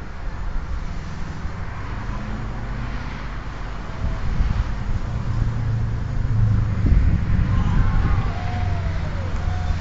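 Low steady outdoor rumble that swells from about four seconds in, with a few faint distant shouts late on.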